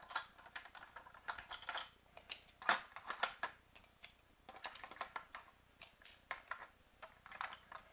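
LEGO plastic pieces clicking and clattering as cargo is set back by hand into a LEGO trailer: an irregular run of light clicks and taps.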